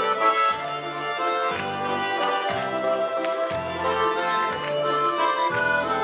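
Instrumental passage on a Russian garmon: a bright melody played over an alternating bass-and-chord accompaniment in a steady, even folk dance rhythm.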